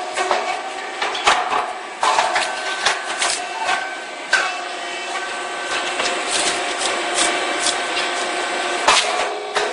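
Rice cake popping machine running: a steady mechanical hum with irregular clicks and knocks, the sharpest about 1, 2 and 9 seconds in.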